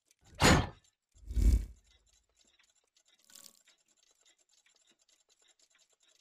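Logo-animation sound effects: a whoosh about half a second in, a deep impact about a second later, then faint rapid ticking that stops near the end.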